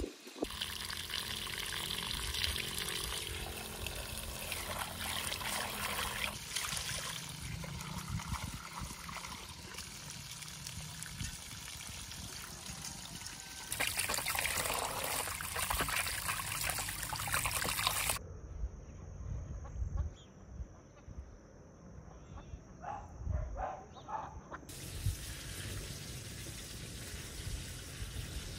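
Water trickling and splashing, broken by several abrupt cuts. In one quieter stretch midway a thin, steady high tone runs for several seconds.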